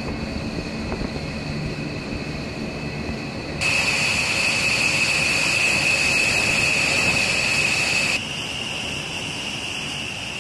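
Jet turbine noise on a flight line: a steady high whine over a broad rumble. It jumps louder about three and a half seconds in and drops back about eight seconds in.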